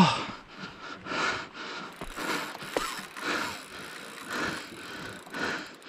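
Daiwa Saltiga Expedition 5500H spinning reel being cranked in steady strokes, about two a second, gears whirring as line is wound in under load from a hooked bluefin tuna. A brief rising squeak comes near the middle.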